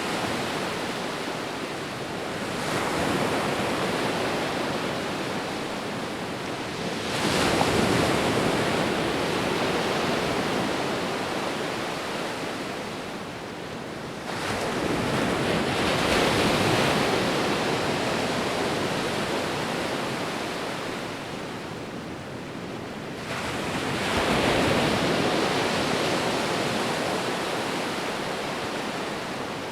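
Sea waves breaking and washing up, a steady surf hiss that swells and fades every seven to nine seconds; four surges, the loudest coming about seven seconds in.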